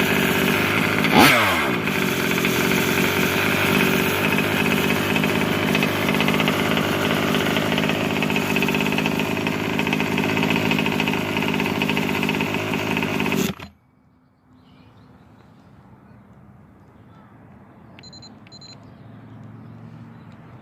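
Small two-stroke gas engine of a 1/5-scale RC truck running, with a brief rev that falls away about a second in. It cuts off abruptly about 14 seconds in, shut down by the kill switch.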